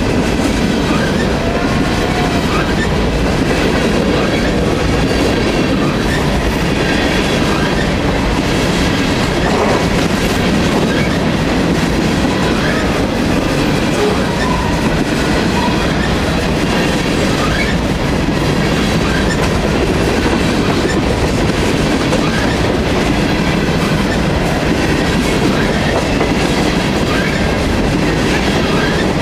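Freight train of covered hopper cars rolling past close by: a steady rumble and clatter of the wheels on the rails, with scattered brief squeals.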